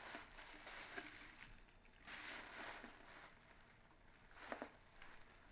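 Faint rustling with a few light clicks and knocks, as packaging and makeup items are handled and moved about.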